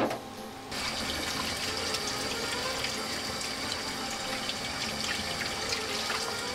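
Meat sauce of minced pork, vegetables, tomato and demi-glace sizzling and bubbling in a frying pan: a dense, steady crackle that starts abruptly just under a second in.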